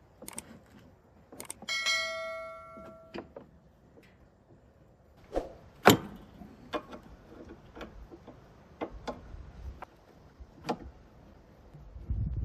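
Metal tools and parts clanking and clicking during hands-on repair work on a band sawmill. A struck metal piece rings out for about a second and a half about two seconds in, followed by scattered knocks, the sharpest about six seconds in.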